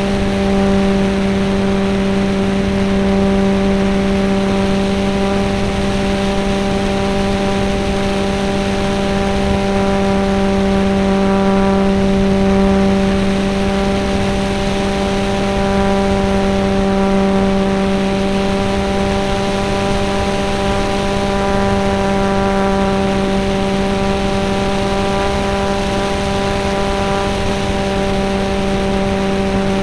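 RC model airplane's motor and propeller running at a steady, unchanging pitch, heard from a camera mounted on the plane, with air rushing past the fuselage.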